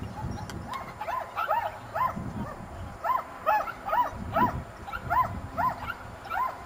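A dog yelping over and over in short, high-pitched yips, about two a second, starting about a second in.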